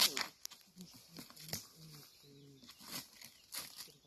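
Sharp clicks and rustling from an animal carrier being handled and opened, with a run of short, low-pitched vocal sounds in between.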